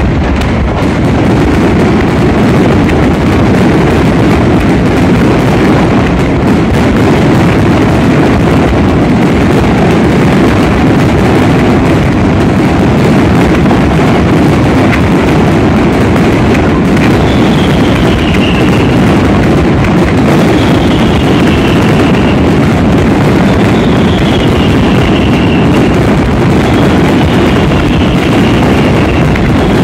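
A barrage of aerial fireworks, the shells bursting so fast that the bangs and crackle run together into one loud, unbroken din. In the second half a short falling whistle sounds about every three seconds, four times.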